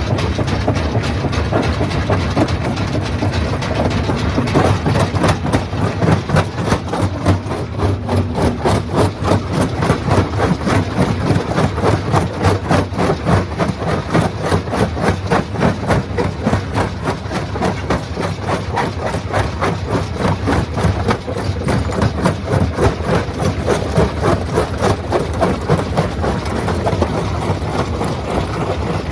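Stone crusher running under load: a steady heavy engine drone with a constant, rapid clatter of rock being broken.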